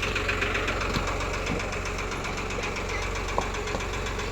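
New Holland 3636 tractor's diesel engine running steadily with an even, rapid pulse, and a single short tick about three seconds in.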